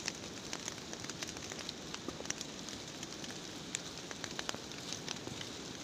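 Light rain falling, scattered drops ticking and crackling irregularly on plastic rain sheets and leaves over a soft steady hiss.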